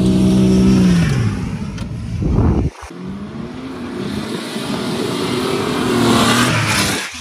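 Off-road 4x4 engine held at steady revs, its note falling off about a second in. After a sudden cut near the middle, the V6 engine of a Nissan D21 pickup revs up under load, its pitch rising as it climbs a sand dune.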